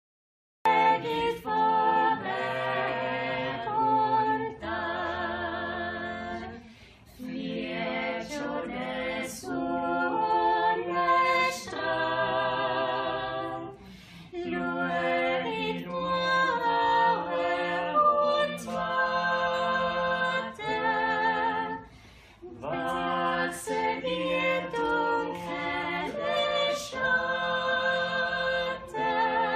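Choir singing a cappella as background music: held chords in several voices with vibrato, in phrases separated by short pauses. It starts about half a second in.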